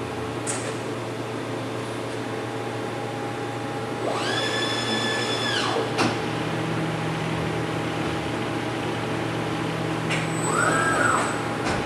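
Breton MAXIMA vertical machining centre running with a steady hum. About four seconds in, a drive whine rises, holds for about two seconds and falls away, followed by a sharp click. Near the end a shorter whine rises and falls.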